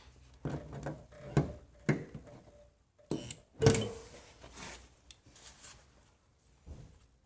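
Irregular knocks and clunks from hand work on a car door panel, about six in all, the loudest a little past halfway.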